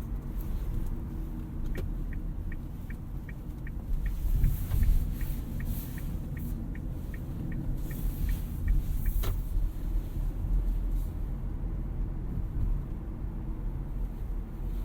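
Cabin road noise and low rumble from a 2018 Toyota Auris Touring Sports 1.8 Hybrid on the move, swelling briefly about four seconds in. From about two seconds in, the turn indicator ticks evenly, about three times a second, and stops after about seven seconds, with a sharp click at its start and end.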